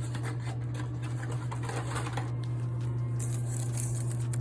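Small irregular clicks and rattles of boxed 9mm cartridges and their cardboard being handled, busiest in the first half, over a steady low hum.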